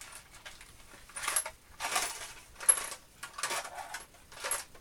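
Small metal center drills clinking and rattling as they are handled, in about five separate bursts with sharp high metallic glints.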